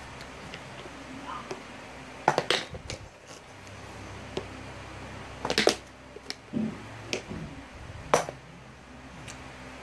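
A small plastic lotion bottle and a toilet paper roll being flipped and landing, with a series of sharp knocks on a hard tile floor; the loudest come about two and a half, five and a half and eight seconds in.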